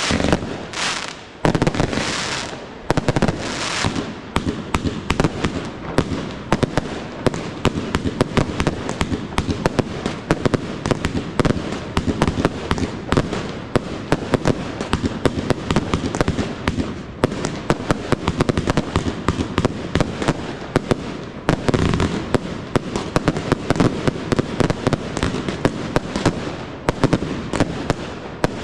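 Professional fireworks display: a dense, continuous crackle of many rapid small pops from aerial fireworks. Heavier bangs stand out in the first few seconds and again about three quarters of the way through.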